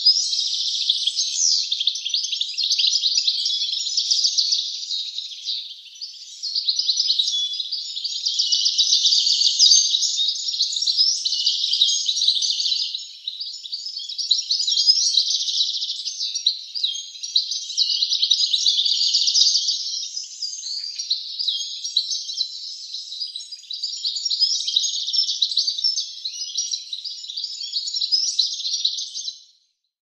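European goldfinch singing: long runs of rapid, high-pitched twittering with a few short breaks, cutting off abruptly just before the end.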